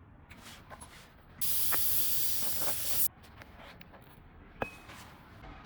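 A single burst of pressurised spray hissing for about a second and a half, then cutting off suddenly, with a sharp click a moment later.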